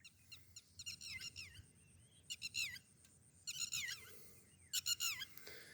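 A small bird chirping: four short bursts of quick, high, falling notes, a second or so apart.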